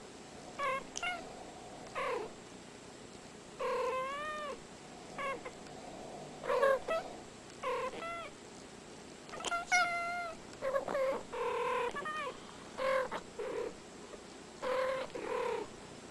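Two house cats trading short chirping meows and trills back and forth, a call about every second, several bending up and down in pitch.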